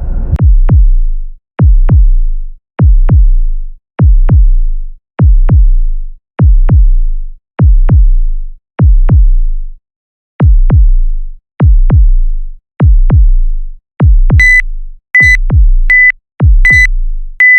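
Electronic music: a deep drum-machine hit with a falling synth sweep, repeating about once every second and a bit. In the last few seconds a short high beep sounds with each hit.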